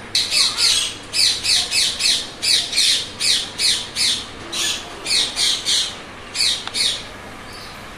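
Green parrot squawking: a rapid series of about twenty harsh, high screeches, roughly three a second, that stops about a second before the end.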